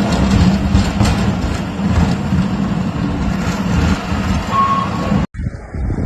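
A motor vehicle's engine runs steadily, with one short high beep about four and a half seconds in. The sound cuts off abruptly after about five seconds and gives way to a duller outdoor rumble.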